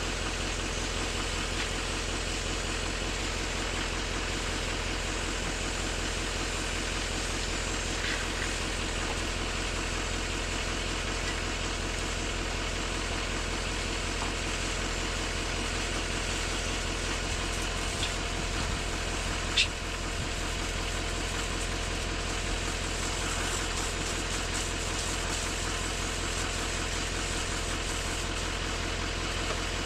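Pressure washer running steadily, its wand spraying water against a pickup's underside and wheel, a constant engine-like drone with a hiss of spray. A single sharp click about two-thirds of the way through.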